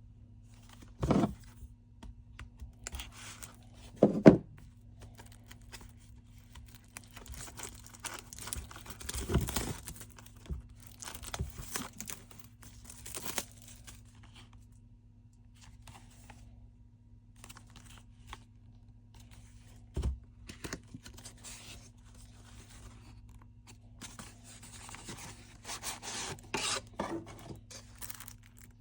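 CD packaging being torn open and crinkled, in irregular bursts of tearing and rustling, with a few short knocks as the case is handled. A faint steady hum runs underneath.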